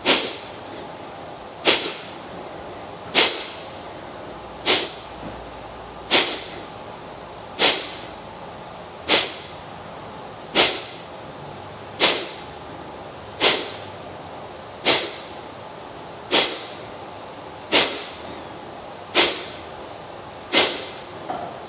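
Kapalabhati breathing: short, forceful exhalations through the nose, each a sharp puff of air pushed out by a snap of the abdomen, repeated steadily about once every one and a half seconds, with the inhalations between them barely heard.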